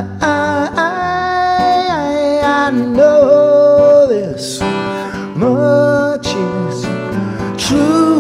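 Pop song with acoustic guitar under a sung melody of long held notes that slide between pitches, with no words.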